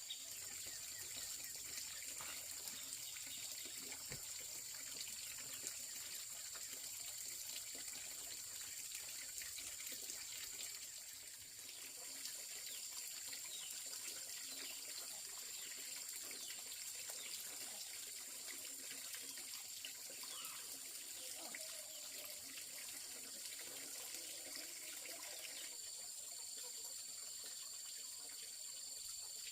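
Water trickling and splashing steadily over a constant high-pitched insect drone. A second, lower insect tone joins near the end.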